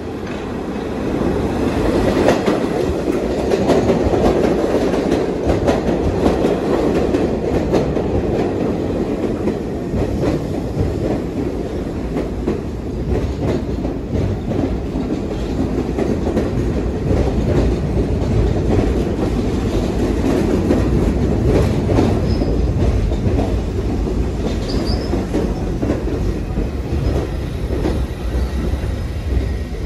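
New York City subway train (N line) arriving and passing close by: a loud, steady rumble of steel wheels clattering over the rails, swelling up within the first two seconds. Near the end there are a couple of brief, faint squeals from the wheels.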